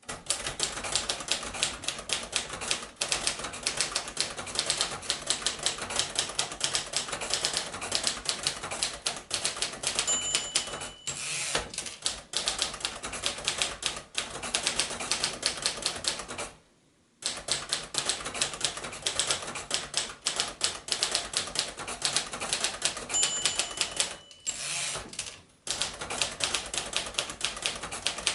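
1955 Royal Quiet De Luxe manual typewriter typed at a quick pace, a fast run of key strikes. Twice the margin bell dings, about ten seconds in and again past twenty seconds, each time followed by the carriage being returned, with a short pause in the typing just after the middle.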